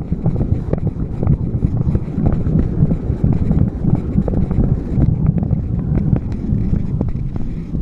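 Loud low rumble and rustle of handling noise on a moving handheld camera, with many small clicks and knocks scattered through it.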